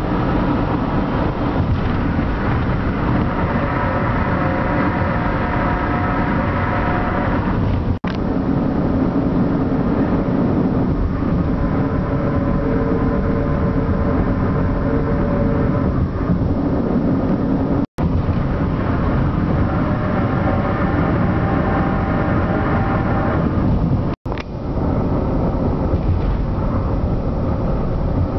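Car tires rolling on grooved concrete highway pavement: a steady road roar with several held, singing tones over it whose pitches shift from stretch to stretch. The noise breaks off briefly three times.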